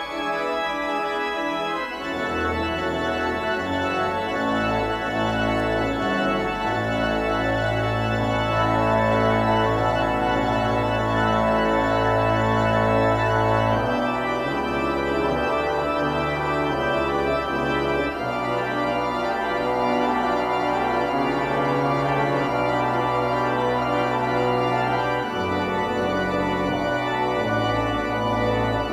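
Church organ playing the closing postlude: sustained full chords over a deep pedal bass that moves to a new note every few seconds.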